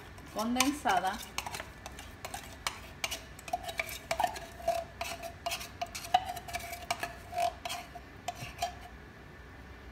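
Metal spoon scraping thick condensed milk out of a tin can into a blender jar: a run of quick scrapes and clinks, with a faint ringing tone through the middle.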